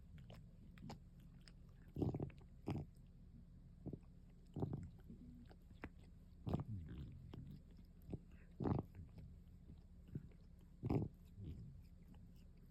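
A cat grooming itself close to the microphone: short wet licking and nibbling sounds every second or two.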